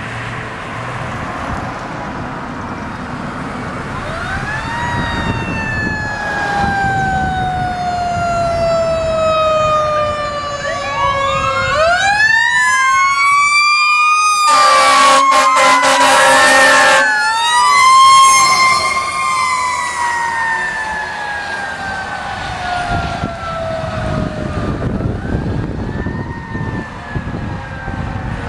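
Fire engine siren wailing. It winds up quickly and falls away slowly, several times over, and a long, loud horn blast comes about halfway through, over the rumble of the truck's diesel engine.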